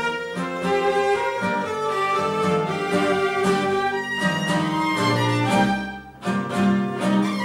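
Violin and bowed double bass playing together in sustained, legato notes. The sound drops away briefly about six seconds in, then the playing resumes.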